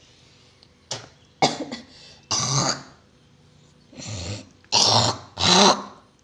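A woman coughing and clearing her throat in about six short, harsh bursts, the loudest near the middle and towards the end.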